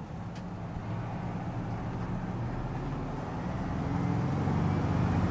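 1967 Volkswagen 21-window bus under way, heard from inside the cabin: its rear-mounted air-cooled flat-four engine runs steadily and smoothly over road noise. It grows louder through the last couple of seconds as it pulls harder.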